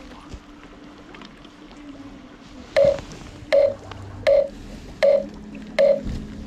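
A run of short, loud electronic beeps, evenly paced at about one every three-quarters of a second, starting nearly three seconds in. Faint wind noise lies underneath.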